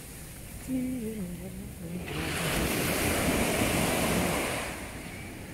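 Ocean surf: a wave breaks and rushes up the beach about two seconds in, a loud rush of foaming water that fades after about five seconds. A person's voice is heard briefly just before it.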